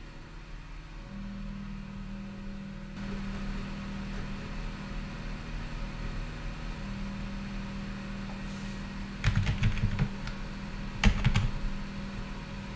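Steady whir of the running computer's fans and drives, stepping up a little about three seconds in. Near the end come two short runs of computer keyboard typing as a command is entered at the Linux prompt.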